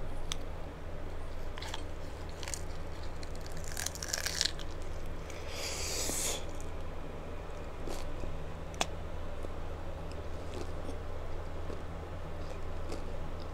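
Close-up mukbang eating of a hard-shell taco: bites and crunches of the crisp shell, the loudest two about four and six seconds in, with chewing and scattered sharp clicks from the mouth, over a steady low hum.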